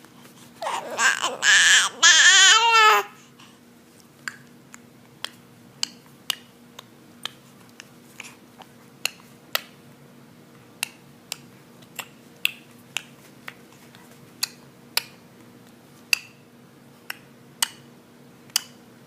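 A baby's loud, high squealing cry lasting about two seconds, its pitch wobbling up and down, followed by a long run of short sharp clicks spaced about half a second to a second apart.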